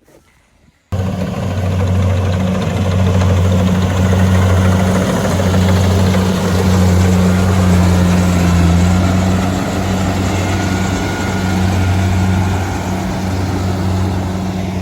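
Rice combine harvester's engine running steadily, a loud constant low hum that cuts in abruptly about a second in.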